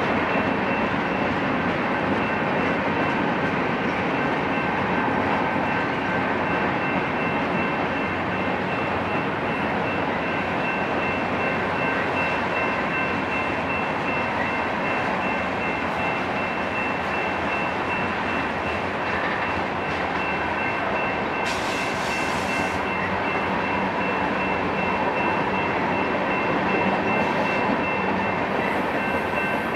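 Freight cars of a long BNSF mixed manifest train rolling past: a steady, loud rumble and clatter of steel wheels on rails, with a faint high steady whine running through it and a short hiss about two-thirds of the way through.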